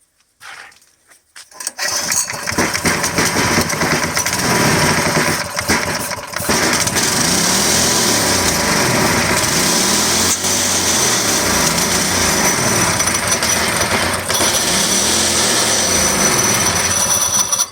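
Small mini bike engine, sitting for over a year, started up: it catches about two seconds in and runs, its speed rising and falling, despite a carburetor the owners consider bad.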